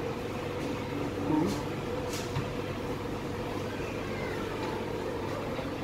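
Indoor shopping-mall ambience: a steady hum with faint distant voices now and then.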